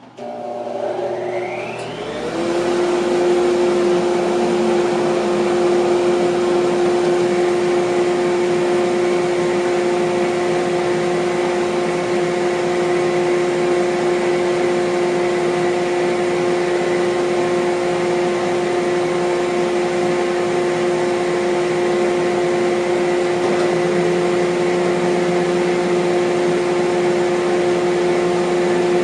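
Large floor-standing bandsaw switched on. Its motor spins up with a rising whine over about two seconds, then runs at a steady hum.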